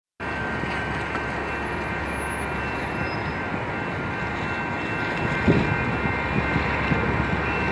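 Steady outdoor rumble with a few faint, steady high tones, and a handful of soft thumps about five and a half seconds in.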